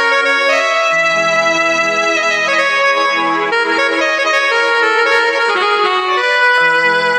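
Roland XP-30 synthesizer played with both hands: a melody over sustained chords. The chord changes about a second in and again near the end.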